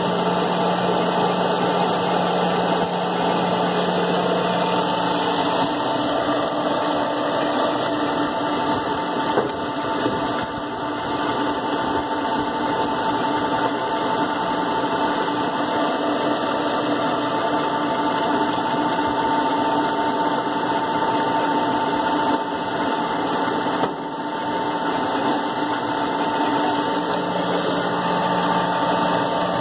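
Steady machine hum with several held tones from a running solar pump installation, its variable-frequency drive turning the motor at about 47 Hz. A low tone in the hum drops away about five seconds in and comes back near the end.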